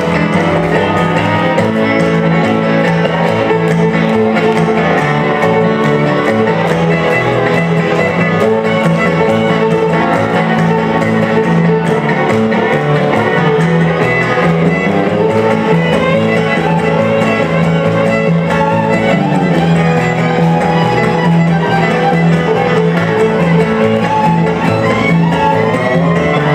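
A live string band: a fiddle plays the lead over a strummed acoustic guitar, an electric guitar and an upright bass.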